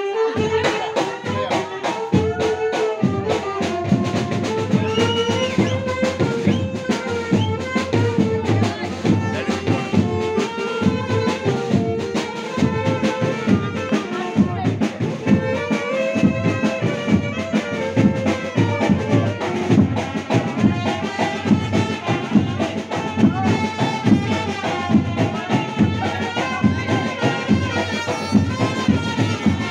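A live band playing: a horn melody over a steady drum beat.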